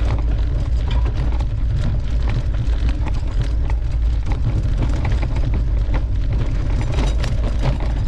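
Mountain bike rattling and clattering over a rough, bumpy trail, with many short knocks over a steady low rumble of riding noise on the microphone.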